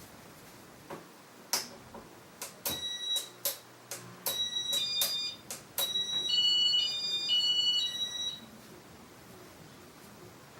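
Casablanca IntelliTouch fan control being keyed: button clicks and short high beeps, then a warbling electronic tune of alternating high beeps lasting about two seconds as demo mode is started.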